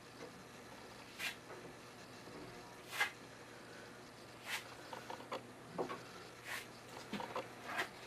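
Putty knife scraping paste off a hand-held board and spreading it over a concrete foundation crack: a series of short, irregular scrapes.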